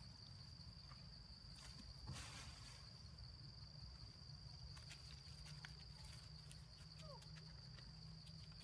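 Faint, steady high-pitched insect drone, like crickets, over low background rumble, with a brief rustle about two seconds in and a faint short falling squeak near the end.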